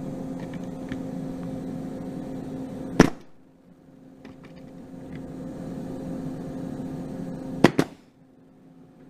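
Raptor pneumatic nailer firing plastic nails into a wooden board: one sharp shot about three seconds in and two quick shots near the end, over a steady machine hum.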